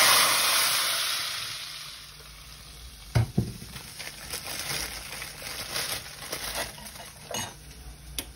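Hot oil with fried garlic (a tadka) poured into a pot of masoor and moong dal, sizzling loudly and fading over about two seconds. About three seconds in come two sharp knocks, then scattered clicks and scraping as the dal is stirred with a wooden spoon.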